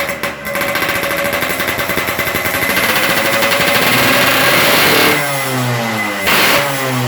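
Vehicle engine revving through an aftermarket custom exhaust: revs held high and building for about five seconds, then dropping back toward idle, followed by a quick throttle blip.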